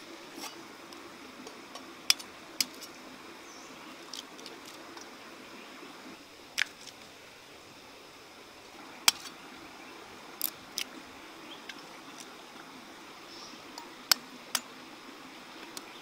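Sharp, isolated knocks of a cleaver on a wooden chopping board, about nine in all, several in close pairs half a second apart, over a faint steady hiss.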